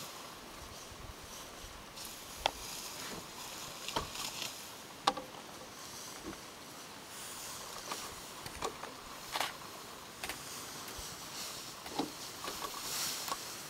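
African elephant pulling and tearing grass with its trunk while feeding: scattered sharp snaps of grass stems and short rustles over a faint steady hiss.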